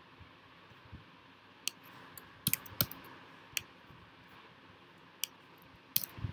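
A handful of sharp, irregularly spaced clicks from a computer keyboard and trackpad as code is entered, over faint room hiss.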